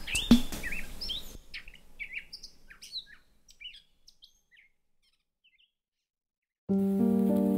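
Background music with birdsong: the track's beat stops about a second and a half in, leaving scattered bird chirps that thin out and fade by about four seconds. After a silent gap, a new music track begins abruptly near the end with sustained, layered tones.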